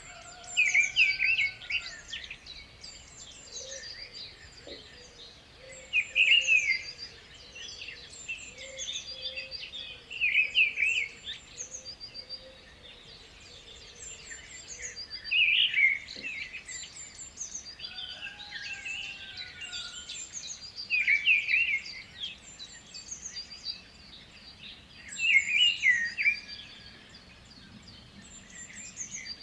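Birds singing: a loud warbled song phrase comes about every four to five seconds, over a constant chorus of high chirps.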